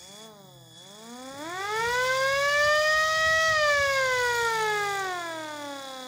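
Small red MS-190 electric motor siren winding up: after a short wobble in pitch it climbs to a peak about three and a half seconds in, then winds down in a slowly falling wail.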